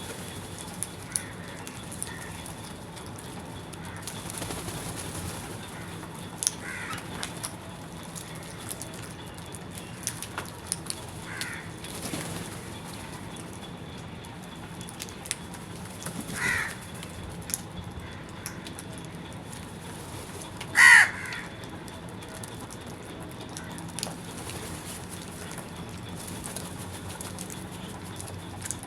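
Crows cawing now and then: about five short single calls spread out, the loudest about two-thirds of the way through, over a steady background hiss with scattered small clicks.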